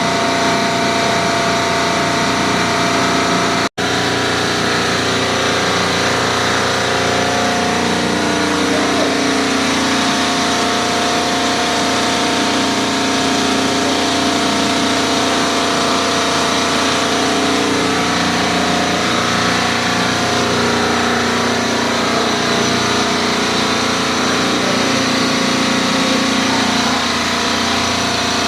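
Sabroe industrial refrigeration compressor running with a steady, loud mechanical noise made of many constant tones. The noise is abnormal, and goes with a valve plate running hot at 194°F. The sound drops out for a moment about four seconds in.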